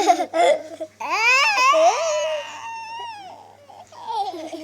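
A young child's voice: brief laughing and babbling, then a long high-pitched squeal that rises and falls in pitch, and more babbling near the end.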